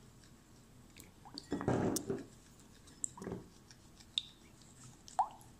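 A spoon stirring a thick, wet mixture of coconut cream, olive oil and flaxseed gel in a bowl: soft squelching twice, with a few light clicks of the spoon on the bowl.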